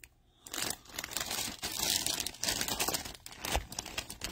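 Clear plastic bag around a football crinkling as the ball is handled and turned over inside it, starting about half a second in.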